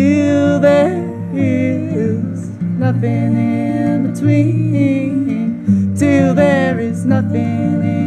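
Acoustic guitar strumming chords while a fiddle plays a melody over it, with sliding notes near the start and again about six seconds in.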